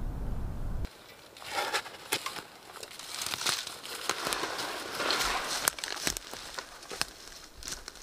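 Wind rumbling on the microphone, cut off abruptly about a second in. After it comes a crackling, rustling sound with many sharp clicks.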